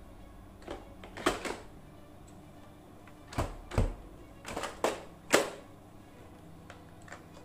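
Sharp plastic clicks and clacks from a Nerf M41-A Pulse Blaster as it is handled and its parts are fitted together. They come as a string of separate knocks, some in quick pairs, with the loudest about five seconds in.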